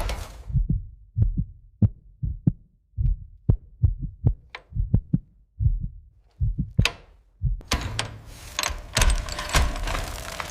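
Repeated dull knocks, about one or two a second, of hammer blows on the cast iron block of a seized 292 V8, working loose pistons rusted into their cylinders. About three seconds before the end a steady hissing, whirring noise takes over.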